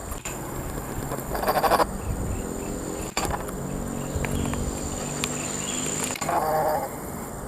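Two short calls from an animal, about a second in and again near the end, over steady insect buzzing.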